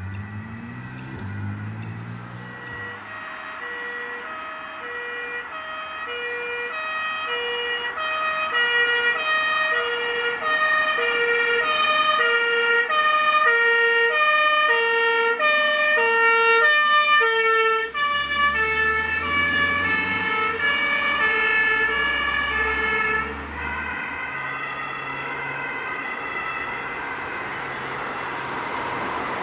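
An ambulance's two-tone German siren (Martinshorn), alternating high and low notes. It grows louder as the ambulance approaches, drops in pitch as it passes about two-thirds of the way through, then fades as it drives away. The van's engine is heard briefly as it goes by.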